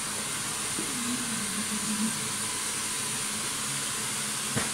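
Handheld hair dryer blowing steadily, a constant airy hiss, with a single sharp knock near the end.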